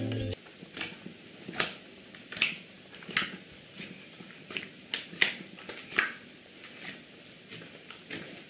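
Homemade glue slime being pressed and pulled with the fingertips: a string of sharp sticky pops and clicks, roughly one or two a second, as the fingers push in and lift out.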